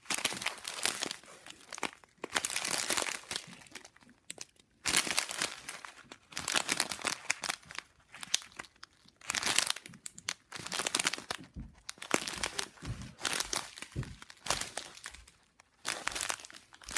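Small resealable plastic bags of diamond-painting drills crinkling as they are handled and turned over, in repeated bursts with short pauses between them.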